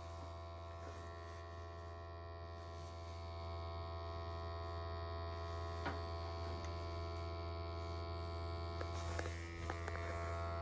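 Steady electric hum of boiler-room equipment, a low drone with many steady overtones, heard with the boiler's burner just shut off.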